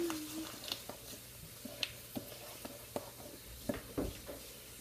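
A spoon stirring thick brownie batter in a mixing bowl, giving irregular soft knocks and scrapes against the bowl, with a heavier bump about four seconds in.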